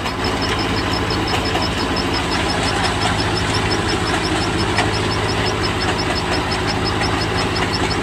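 Engine of farm harvesting machinery running steadily at idle with a fast, even low pulse. A high chirp repeats regularly about four times a second over it.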